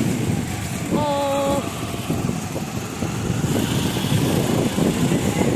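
Street traffic: vehicle engines running in a continuous rumble, with a vehicle horn sounding once, a flat steady note for about half a second, about a second in.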